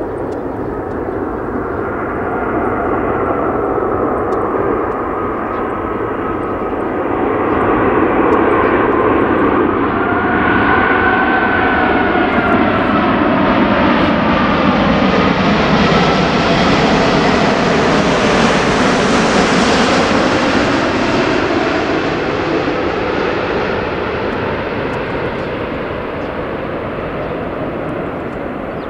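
Airbus A380-841's four Rolls-Royce Trent 900 turbofans on landing approach, flying low past: a jet rumble that swells to its loudest near the middle, with whining tones that slide down in pitch as the aircraft goes by, then slowly fades.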